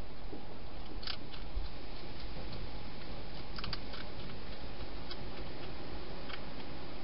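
A hedgehog crunching dry food in a plastic feeding station: scattered faint, crisp clicks, several in quick succession about three and a half seconds in, over a steady hiss of camera microphone noise.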